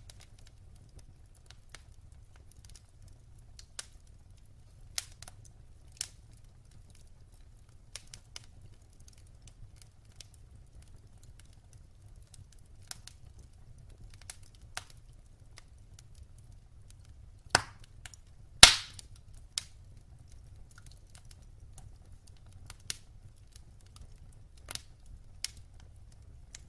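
Wood fire crackling in a fireplace: scattered sharp pops and snaps over a low steady rumble, with two louder pops about a second apart roughly two-thirds of the way in.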